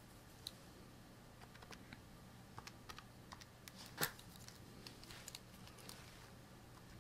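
Keys being pressed: scattered light key clicks at an irregular pace, with one louder click about four seconds in, over a faint steady low hum.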